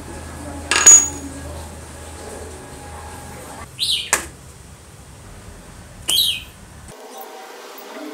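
Small metal compressor-pump parts clinking as they are set into a stainless steel bowl. A sharp, ringing clink comes about a second in, with lighter clinks around four seconds and again near six seconds.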